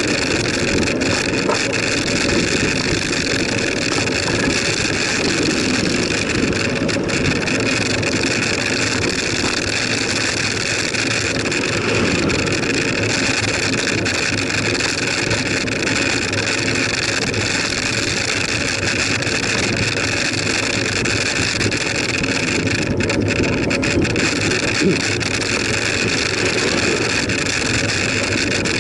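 Steady wind rushing over the microphone of a camera on a moving bicycle, with the rolling rumble of the tyres on the tarmac road.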